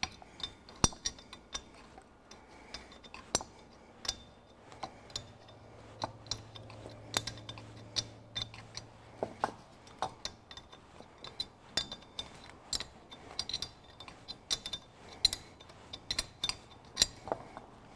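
A small open-end spanner and loose bolts clinking on the cast-iron thermostat housing of a Ferguson 23C diesel engine as the housing bolts are worked loose. The sound is a run of light, irregular metallic clicks and taps.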